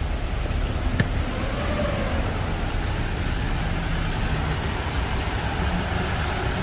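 Road traffic driving through a flooded street: a steady hiss of tyres spraying through standing water, with the low running of a bus and car engines. There is a single sharp click about a second in.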